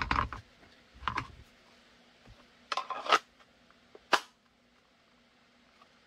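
Kydex holster and plastic gun mold handled on a cutting mat: a knock at the start and another about a second in, a short clattering scrape about three seconds in, and one sharp click about four seconds in as the mold is fitted into the holster.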